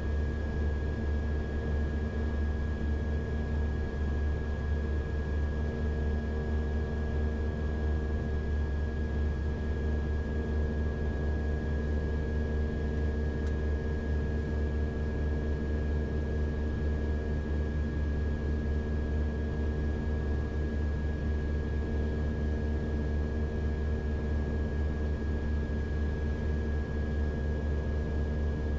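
Beechcraft King Air's twin Pratt & Whitney PT6A turboprop engines idling on the ground, heard inside the cockpit as a steady low drone with a constant high whine above it.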